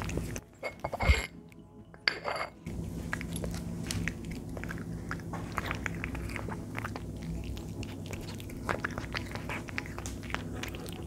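Cat chewing wet food chunks in sauce from a saucer close to the microphone: a dense, irregular run of wet smacks and sharp clicks.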